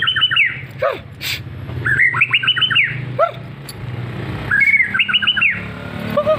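White-rumped shama (murai batu) singing: three quick phrases of rapidly repeated notes, with short falling whistles between them.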